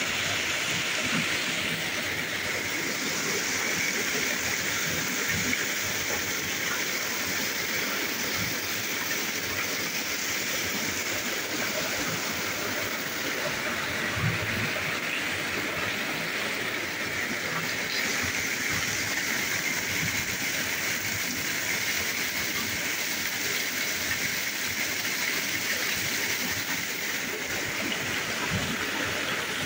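Steady downpour of rain, with water dripping and running off the roof edge.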